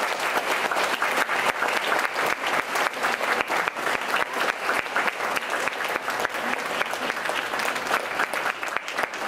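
Audience applauding, many people clapping at an even level.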